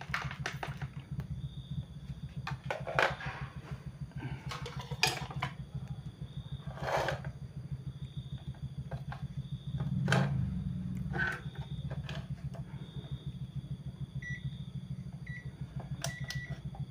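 Digital multimeter giving several short high beeps in the last few seconds as its dial is set, over a steady low hum. Scattered clicks and knocks of probes and parts being handled run throughout.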